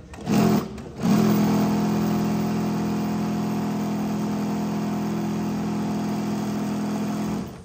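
A motor or engine running with a steady, even hum, after a short burst; it starts about a second in and cuts off abruptly near the end.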